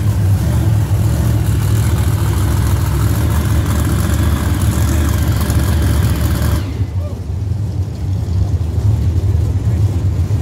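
Monster truck's supercharged V8 engine running low and steady at slow rolling speed. A brighter layer of noise over it cuts off suddenly about six and a half seconds in, leaving the deep engine sound.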